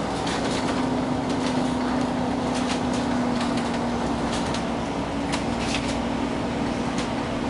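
Bus engine running steadily, heard from inside the moving bus: an even drone with a steady low hum and light clicks and rattles now and then.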